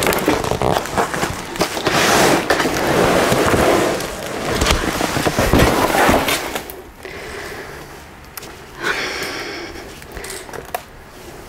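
Large corrugated cardboard shipping box being lifted, shifted and packed away: scraping and rustling with sharp clicks, loud for about the first six seconds, then quieter scattered handling noises.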